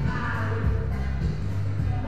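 Dance music played by a DJ over the sound system, with a heavy, steady bass and a sung vocal near the start.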